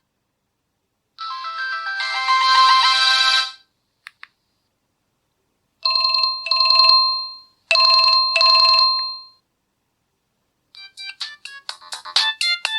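LG A140 mobile phone tones played one after another, each with a pause between. A short melodic jingle comes about a second in, then a ring-ring tone sounds twice, and near the end a new tone of quick staccato notes begins.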